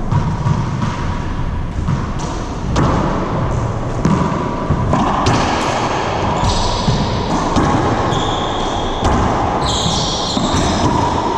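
Racquetball doubles rally: the rubber ball repeatedly smacking off racquets, walls and the hardwood floor, echoing in the enclosed court, with short high squeaks of sneakers on the floor near the end.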